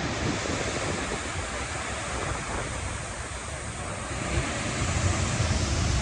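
Steady rush of a 30-metre waterfall pouring into its plunge pool, with wind buffeting the microphone in uneven low rumbles that grow stronger about four seconds in.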